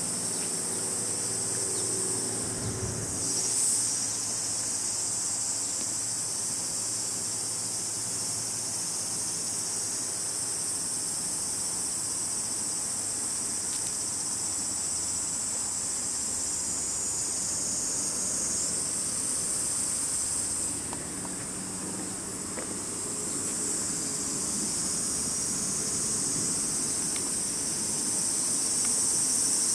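Steady high-pitched chorus of insects, which fades a little about two-thirds of the way through and grows louder near the end. A brief low bump comes about three and a half seconds in.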